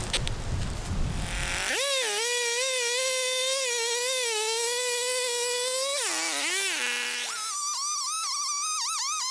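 Brief rough knocking and rustling noise, then from about two seconds in background music takes over: a single wavering, sliding lead melody, dropping in pitch around the six-second mark before rising to a higher held line.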